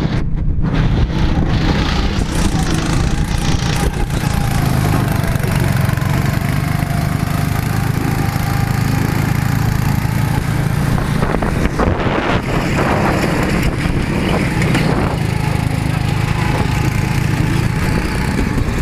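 Go-kart's small engine running steadily at speed under load, with wind and rushing noise over it as the kart laps the track.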